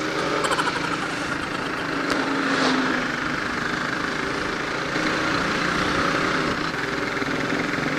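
Motorcycle engine running steadily while riding, under a steady rush of wind and road noise.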